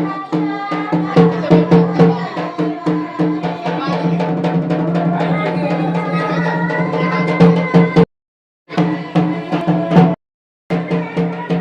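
Music with a steady low drone and a regular drum and percussion beat, cut off twice to dead silence for about half a second near the end.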